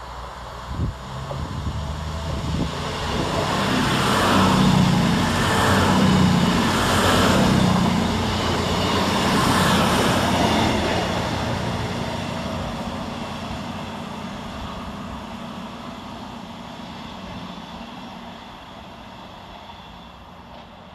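CrossCountry Class 221 Super Voyager diesel-electric multiple unit passing through at speed. Its underfloor diesel engines and wheels on the rails grow loud as it approaches, beat in a regular rhythm as the coaches go by, then fade away as it recedes.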